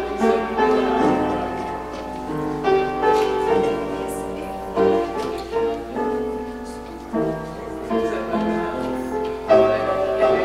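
Piano or keyboard playing slow instrumental music in held chords that change every second or so, over a faint steady low hum.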